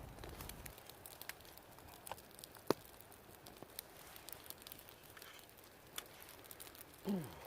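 Open wood campfire crackling faintly, with scattered sharp pops, one louder about two and a half seconds in. A short falling vocal sound near the end.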